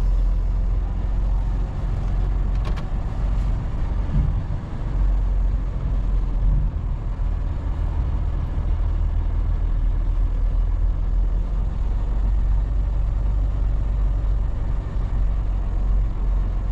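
Semi truck's diesel engine running, a steady low drone with no break.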